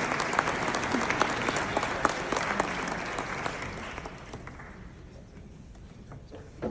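Audience applauding, dying away over about four seconds.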